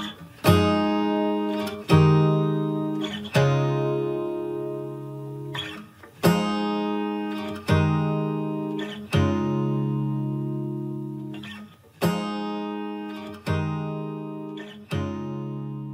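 Background music: an acoustic guitar strumming slow chords, one struck about every one and a half seconds and each left to ring out.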